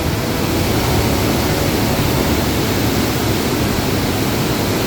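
An underground waterfall about 18 metres high, a powerful mountain torrent crashing down inside a cave, giving a loud, steady rush of falling water.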